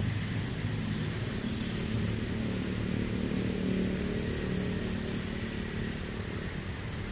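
Road traffic: motor vehicles, motorcycles and cars, running past in a steady low rumble. A short, high-pitched chirp comes about one and a half seconds in.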